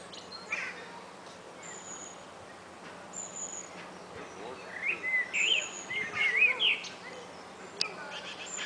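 Small songbirds singing and calling: bursts of quick wavering chirps, strongest a little past the middle, with a few short thin high whistles. Two sharp clicks sound near the end.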